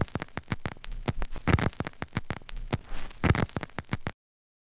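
Logo-intro sound effect: a rapid, irregular run of crackling clicks that cuts off suddenly about four seconds in.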